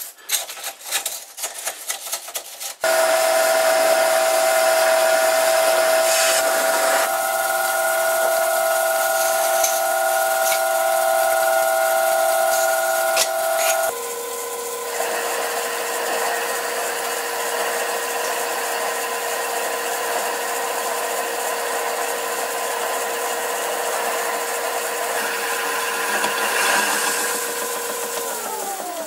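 Scraping and clinking as stringy swarf is pulled off the work, then a metal lathe cutting a taper: a steady machine whine with the rasp of the cut, stepping to a lower pitch partway through. Near the end the whine glides down as the spindle slows.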